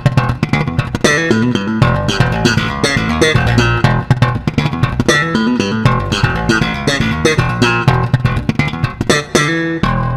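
Music with a prominent bass guitar and plucked guitar over a fast, steady beat. Just before the end the playing stops on one chord, which is left ringing out and fading.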